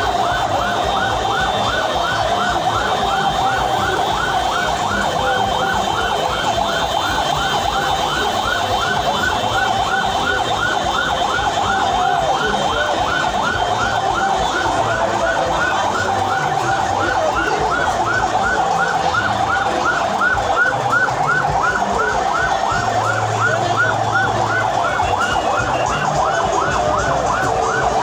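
Vehicle siren on yelp, repeating quick rising sweeps about three times a second without a break, over the din of a large crowd.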